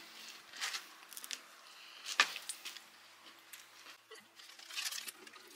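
Quiet handling noise of snack packaging on a table: scattered small clicks and brief rustles, with one sharp tap about two seconds in.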